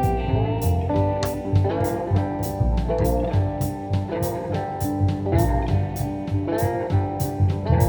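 Background music: guitar-led instrumental with a steady beat and bass.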